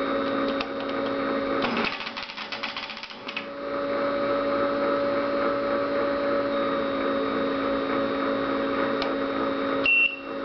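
Tracor AN/UGC-129 airborne teletype running with a steady hum, with a quick burst of rapid clicking from the machine about two seconds in. Near the end a high electronic beep sounds: its bell, rung by the ASCII bell character.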